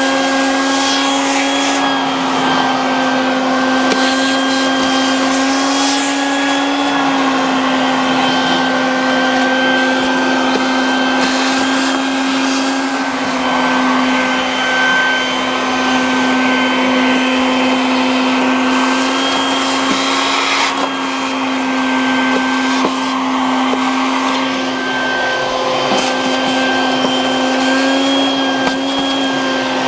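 Shop vacuum running steadily with a whine, sucking leaves and debris out of an air conditioner condenser's base pan, with brief rattles now and then.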